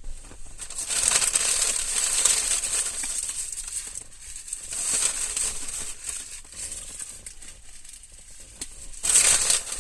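Paper fast-food packaging rustling and crinkling as it is handled. It starts about a second in and lasts a few seconds, then fades, and a louder stretch comes near the end.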